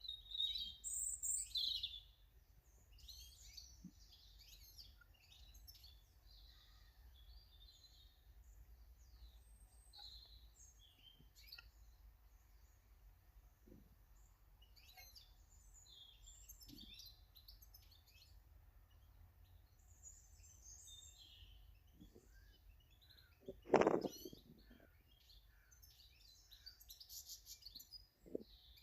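Small garden birds chirping and calling in many short high notes, loudest in the first two seconds. A single knock sounds about 24 seconds in, with a few fainter taps.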